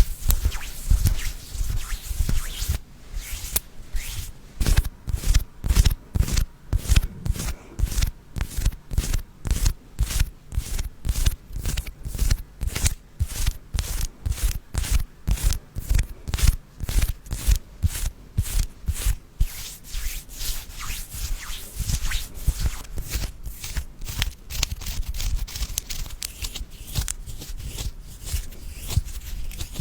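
Close-up rhythmic rubbing or scratching strokes, about two to three a second, blending into a steadier rubbing texture after about twenty seconds.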